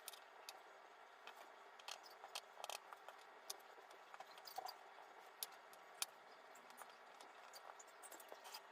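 Near silence, broken by faint scattered small clicks and light taps, about a dozen spread irregularly through the stretch.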